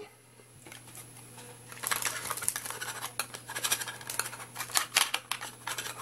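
Hard plastic being handled: rapid clicks, taps and rattles as a wireless mini keyboard is picked up and its plastic battery cover is fitted over the battery compartment. They start about two seconds in.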